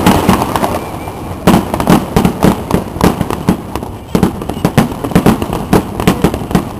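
Aerial fireworks going off in a rapid, irregular volley of bangs and crackles, several a second, with a sharper bang about a second and a half in.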